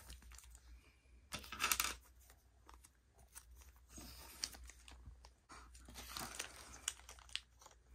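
Small plastic zip-lock hardware bags crinkling and rustling as they are handled, in several short bouts, the loudest about a second and a half in.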